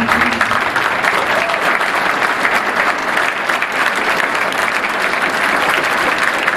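A large audience of schoolchildren applauding steadily.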